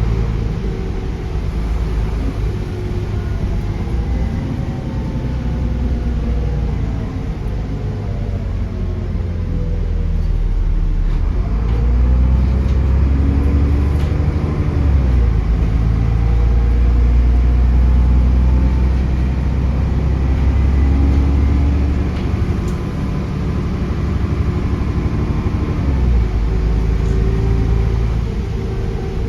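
Diesel bus engine heard from on board while under way, its pitch rising and falling as the bus accelerates, changes gear and slows, over a heavy low rumble. A turbocharger whistle rides on top of the engine note.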